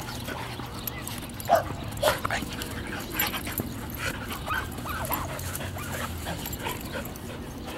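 Dogs play-fighting, giving short yips and whimpers every second or so, the loudest about one and a half and two seconds in.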